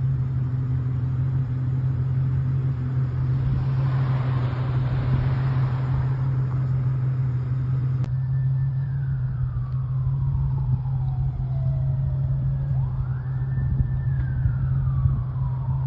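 An emergency-vehicle siren wailing from about halfway through, its pitch falling slowly, rising quickly, holding and falling again, over a steady low hum. Before it, a noise swells and fades, like a vehicle passing.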